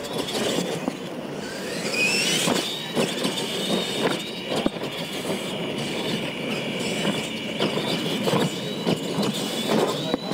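R/C monster trucks racing: their electric motors and gears give a high whine that rises about two seconds in and then holds steady, while the trucks knock and clatter over the dirt and ramps and land after jumps.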